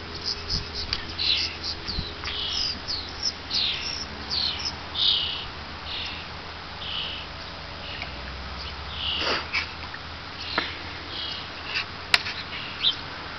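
Small songbirds chirping, a quick run of short, high, falling notes repeated again and again. A few sharp clicks come in the second half, one louder near the end.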